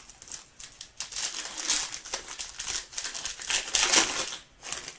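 Trading-card pack wrapper crinkling and rustling as a pack is opened and its cards are handled, in a run of short irregular rustles.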